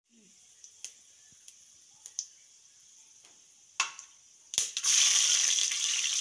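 Hot coconut oil with whole spices sizzling faintly in an aluminium pot, with a few small clicks. About four and a half seconds in, chopped garlic is dropped into the oil and the sizzle jumps to a loud, steady frying hiss.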